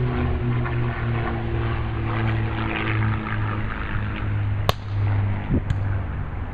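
A steady, low engine drone with several held tones that slowly fall in pitch. A sharp smack of a volleyball being hit about two-thirds of the way through, and a softer hit about a second later.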